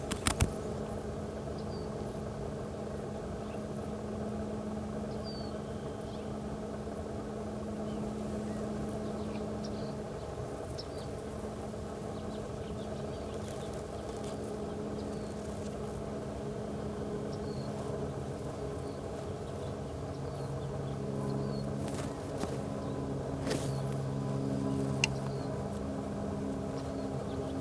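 Steady low engine drone, with a second, deeper engine tone joining about two-thirds of the way through. A few faint short high chirps and a couple of sharp clicks sound over it.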